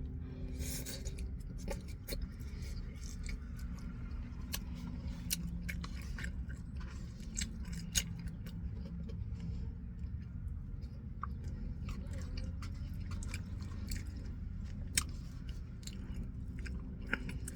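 A person chewing and eating a steak bowl close to the microphone, with scattered wet mouth clicks and smacks over a steady low hum.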